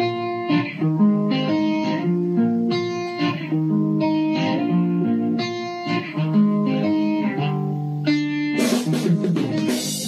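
Background music led by a plucked guitar melody. Near the end it turns fuller and brighter.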